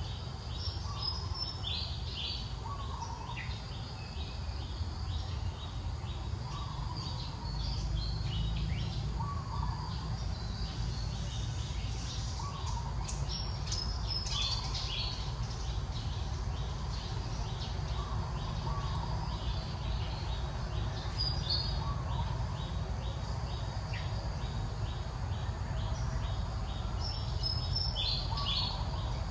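Outdoor ambience of birds chirping: short calls repeated every second or two, with a fast run of high ticks in the middle, over a steady low rumble.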